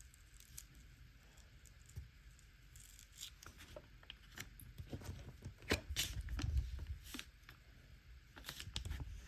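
Transfer paper being peeled off a vinyl sticker: irregular dry crackling and ripping that starts sparse and grows busier and louder about halfway through.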